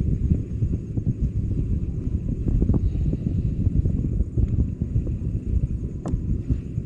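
Wind buffeting the microphone: a loud, uneven low rumble, with one sharp click about six seconds in.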